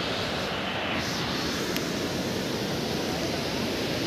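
Steady rushing of a flowing river, an even noise with no pauses.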